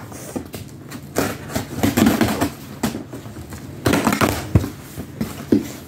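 Cardboard shipping box being torn open by hand: packing tape pulled and cardboard rustling and scraping, loudest in two noisy bursts about two and four seconds in, with a sharp tap just after the second.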